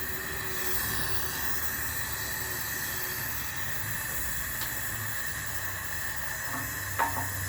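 Steady hiss of a gas torch flame heating the stuck steel shaft of a washing machine, with a short metallic knock near the end.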